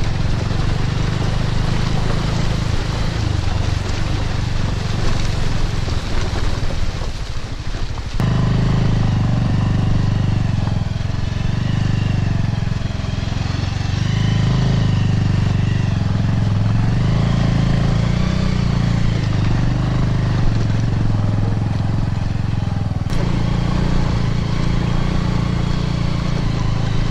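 Motorcycle engine running under way, the throttle rising and falling. The sound changes abruptly about eight seconds in and again about twenty-three seconds in.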